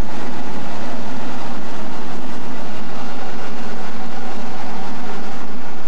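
Narrow-gauge steam train running along the track, heard from an open passenger car: a steady, even rolling noise of the wheels and cars.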